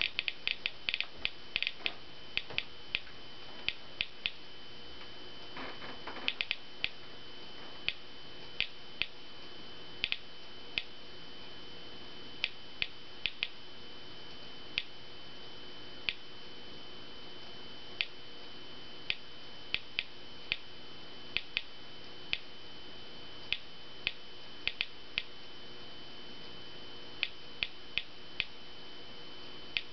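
Victoreen 493 Geiger counter clicking. A rapid crackle at the start thins within a couple of seconds to irregular single clicks, roughly one or two a second, as the radioactive person moves away from the probe and the count drops toward background. A faint steady high tone lies beneath, and there is a brief dull noise about six seconds in.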